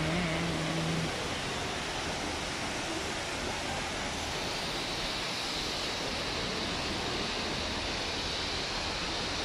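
Steady, even rush of water spilling down a stepped indoor fountain cascade.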